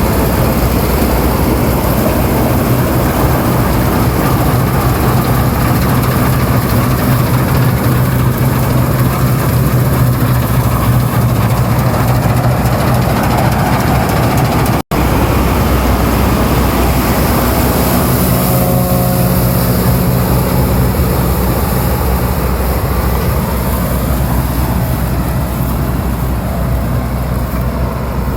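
Fortschritt E514 combine harvester running steadily, its diesel engine and threshing machinery making a loud, continuous mechanical drone. The sound cuts out for a split second about halfway through, then resumes.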